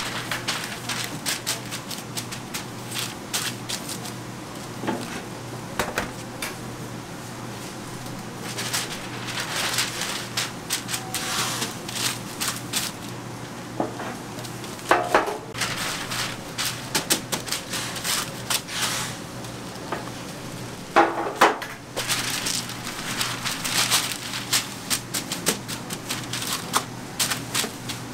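Sheets of baking paper crinkling and rustling as they are folded and pressed into a metal sheet pan, in irregular crackly bursts over a low steady hum.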